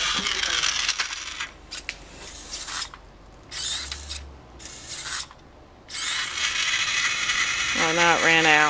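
Small gear motors and servo of a hobby painting robot whirring and rattling as it drives. The motors run, then stop and start in short bursts for a few seconds, then run steadily again.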